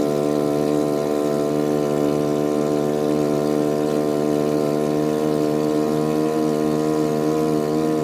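Outrigger boat's engine running at a steady speed under way: an even, unchanging hum made of several pitched tones.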